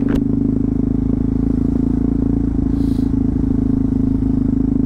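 Yamaha MT-03 660 motorcycle's single-cylinder engine running at a steady speed under way, its note holding constant.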